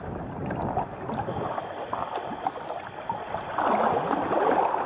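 Water splashing and trickling around a paddled kayak, with small drips and clicks and a louder swish of water near the end.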